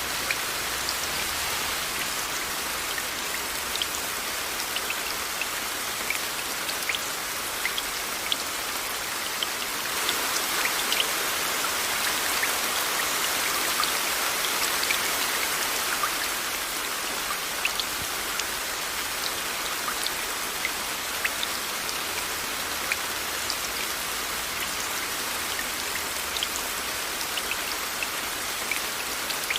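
Steady rain with many individual drops ticking on a surface, blended with white noise. It swells a little louder for several seconds about a third of the way in.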